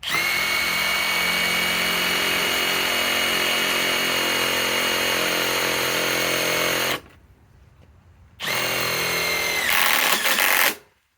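Master Force Boost 1/4-inch impact driver driving a #10 1-inch sheet metal screw: the motor whines steadily for about seven seconds, stops, then runs again for about two seconds, the last second louder and harsher before it cuts off.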